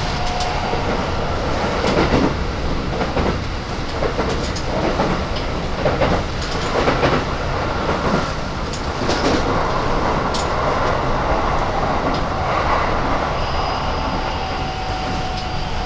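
Keikyu 1000 series electric train running, heard from inside the passenger car: a steady rumble of wheels on rail with irregular clicks and knocks from the track, and a thin steady tone joining near the end.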